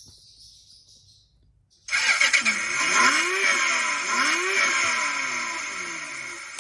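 A motor sound cuts in suddenly about two seconds in, whining and rising and falling in pitch several times, then slowly fades.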